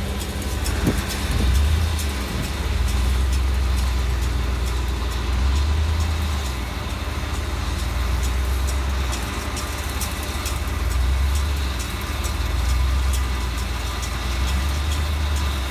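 John Deere 4066R compact tractor's three-cylinder diesel running steadily while working a John Deere 335 round baler. The low engine drone swells and eases every couple of seconds.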